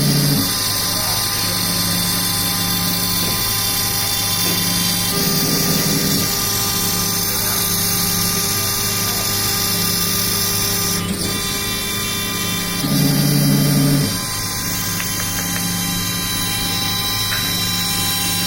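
CNC router cutting MDF, its spindle running with a steady whine. Twice, a louder, lower hum comes in for about a second as the machine works.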